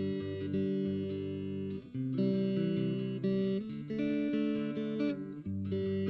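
Background music: held chords that change every second or two.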